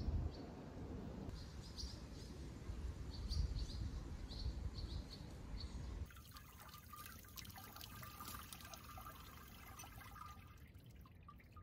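Birds chirping over a low outdoor rumble. About six seconds in, the sound changes to a thin stream of water running from an outdoor tap and splashing on the ground.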